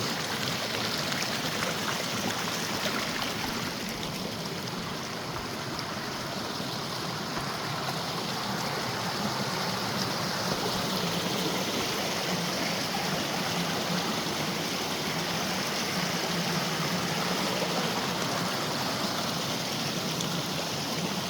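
Mountain creek rushing steadily over rocks close by, a constant wash of water loud enough that a voice has to be raised over it.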